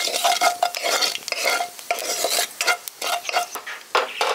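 Nigella seeds sizzling in hot oil in a non-stick kadai, with a wooden spatula scraping and stirring across the pan in irregular strokes.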